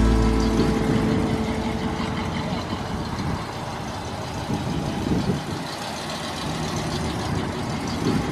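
1966 Oldsmobile 442's V8 engine running at low speed as the car pulls away slowly.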